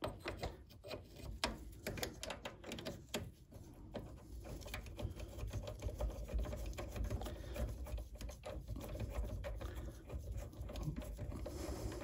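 Ratchet and socket clicking as the bottom bolt of a rear brake caliper is undone, with a ring spanner holding the slide pin behind it. Scattered clicks at first, then a quicker, steadier run of clicks from about five seconds in.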